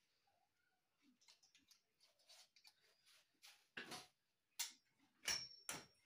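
Tripod light stand being handled and unfolded: a run of small clicks and rattles that grows into several sharp knocks in the second half, the last ones leaving a brief high metallic ring.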